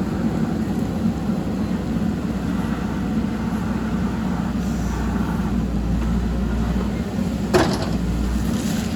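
Backhoe loader's diesel engine running steadily under work, with one sharp clank about seven and a half seconds in.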